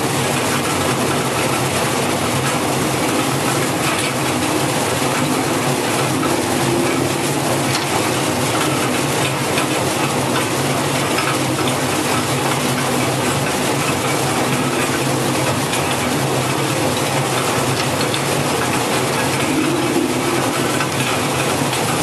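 QX-608 taro peeling and washing machine running: its six rotating brush rollers scrub and tumble a load of taro in the stainless steel trough under water spray. The noise is a steady, even rush with a low motor hum beneath it.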